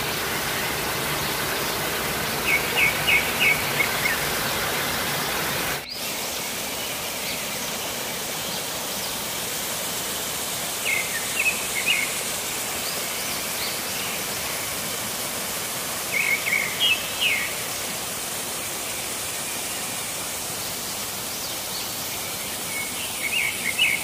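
Steady rush of a waterfall, with a bird calling four times in short runs of quick high chirps. The water sound dips briefly about six seconds in and carries on a little quieter.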